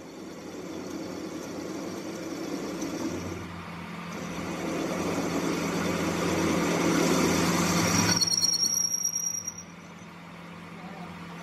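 Metal lathe turning a steel shaft while the cutting tool takes a cut across its end face. A steady motor hum runs under a cutting hiss that grows louder over the first eight seconds and then stops abruptly. A brief high whine follows as the cut ends.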